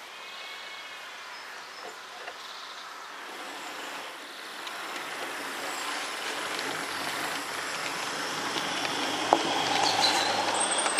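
Garden-railway model electric train running along the track and passing close by: the noise of its wheels and motor grows steadily louder as it approaches, with a sharp click about nine seconds in.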